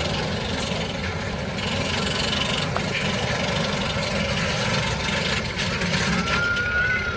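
Roller coaster ride heard from a rider's head-mounted camera: a loud, steady rush of wind over the microphone with the coaster train running on its track.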